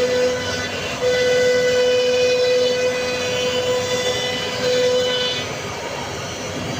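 CNC router carving a wooden door panel: a steady machine whine over cutting noise. The whine drops out briefly about a second in and eases off in the last second or so.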